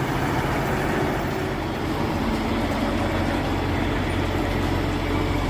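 Kenworth T880S log truck's diesel engine running steadily under load as it hauls logs up a steep incline.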